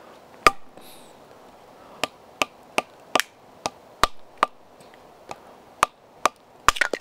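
Batoning: a wooden baton striking the spine of a Schnitzel DU knife to drive its short Scandi-ground blade down through a log section. About a dozen sharp wooden knocks: one about half a second in, then roughly two or three a second from about two seconds in, with a quick double strike near the end. The blade is working through a knot in the wood.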